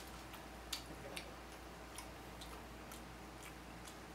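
Faint, irregular clicks from eating at the table, about a dozen spread unevenly, over a low steady hum.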